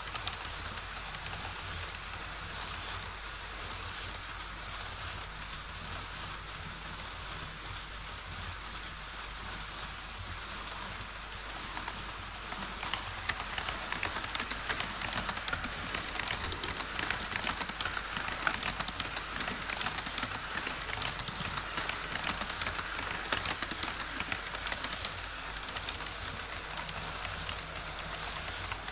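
HO scale model train wheels clattering over rail joints on a model truss bridge: a dense, rapid patter of small clicks that grows louder about halfway through as a freight train of tank wagons rolls closer.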